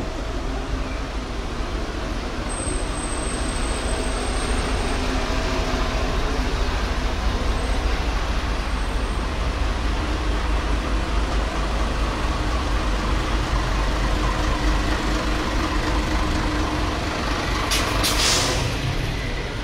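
City bus engines running close by in a steady low rumble, with a short burst of air-brake hiss near the end.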